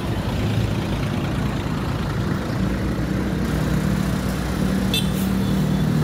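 Coach buses' diesel engines running as they pass at close range, with road traffic noise. A steady low engine drone grows stronger about halfway through, and a brief click comes near the end.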